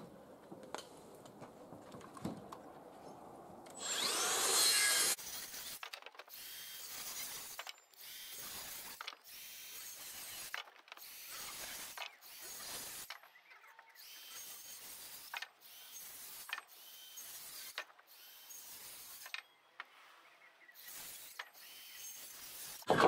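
Handsaw cutting through the end of a timber rafter: a long run of back-and-forth rasping strokes, roughly one a second. About four seconds in there is a louder rasping burst lasting about a second.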